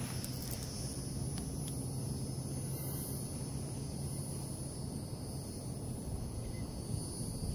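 Quiet outdoor ambience with steady high-pitched insect trilling. A faint low hum fades out about halfway through.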